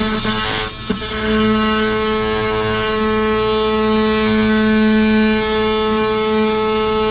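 Milwaukee cordless oscillating multi-tool cutting through a wall panel. After a couple of brief starts in the first second, it runs steadily at one pitch as the blade plunges into the wall.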